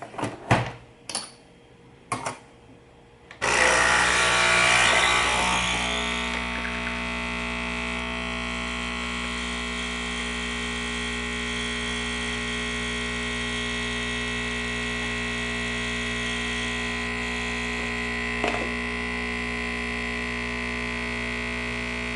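A few clicks and knocks as the capsule machine is readied, then about three and a half seconds in the Nespresso machine's pump starts with a steady buzzing hum, louder for its first couple of seconds, as it brews espresso through a SealPod reusable capsule. A brief click comes near the end.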